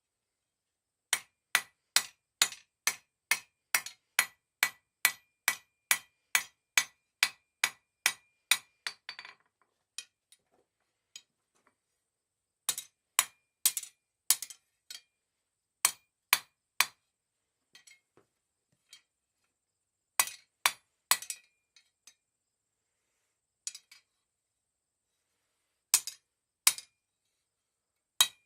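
Blacksmith's hammer striking a half-inch mild steel bar on an anvil, each blow with a ringing note. About two blows a second in a steady run for the first eight seconds or so, then short groups of blows with pauses between them.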